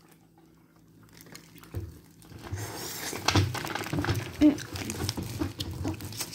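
Plastic-glove rustling and crinkling with handling knocks close to the microphone, starting about two seconds in after a near-quiet moment.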